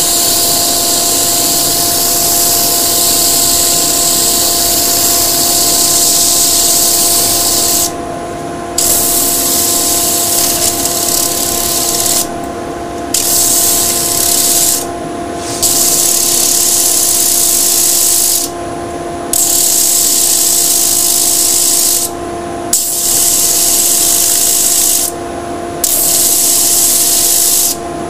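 End grain of a laburnum log section pressed against a 120-grit sanding disc spinning on a wood lathe at about 1,000 rpm: a steady, loud abrasive hiss that stops briefly about seven times, roughly every three seconds, as the wood is lifted off. Beneath it runs a steady hum from the lathe and the dust extractor.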